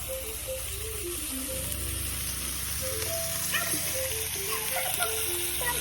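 Background music with a stepping melody and a steady bass, over food sizzling in a frying pan.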